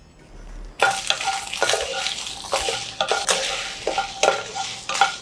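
Dried red chillies sizzling in a little oil in a nonstick pan as a spatula stirs them. The spatula scrapes and knocks against the pan about twice a second, starting about a second in.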